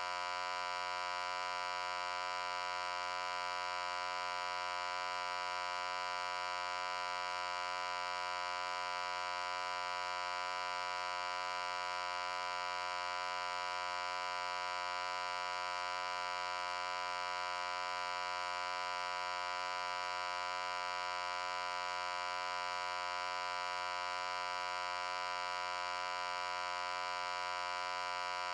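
Loud, steady buzzing hum held at one unchanging pitch with many overtones, with no change in pitch or level.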